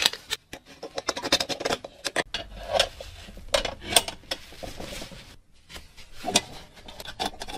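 Small hard parts being handled and rubbed: irregular clicks, taps and scraping, as in working on the metal parts of an old oil lamp.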